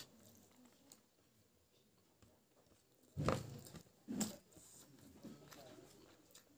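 A person chewing a mouthful of rice and pig intestine with the mouth closed, with two short, louder mouth sounds about three and four seconds in.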